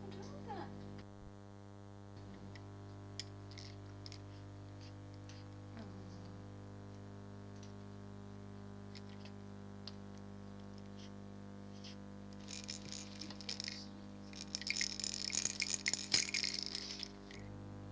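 Steady electrical hum from a cheap toy camcorder's recording, with scattered faint clicks. A few seconds of crackling rustle come near the end.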